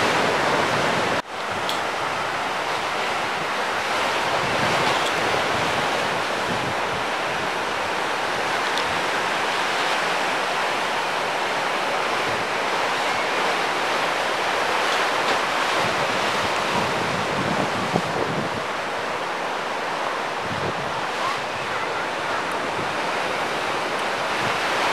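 Ocean surf breaking and washing steadily, with wind blowing on the microphone; the sound cuts out for an instant about a second in.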